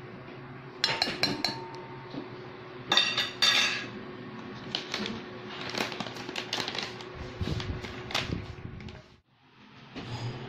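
Metal measuring spoon clinking and tapping against a stainless steel mixing bowl: two bright ringing clatters about one and three seconds in, then lighter taps and scrapes.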